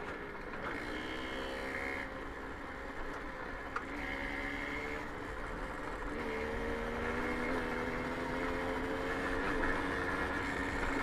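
A Babetta 210 moped's small two-stroke single-cylinder engine running under way on a dirt track, with rough rolling noise beneath it. The engine note wavers in pitch at first, then holds steadier and stronger from about six seconds in.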